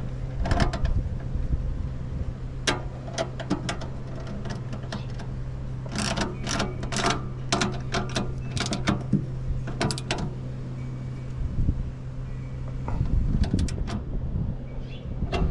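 Bolt, nylon nut and wrench being fitted and tightened on an aluminum rack bracket: scattered metal clicks and taps, with quick runs of clicks about six and nine seconds in. A steady low hum runs underneath.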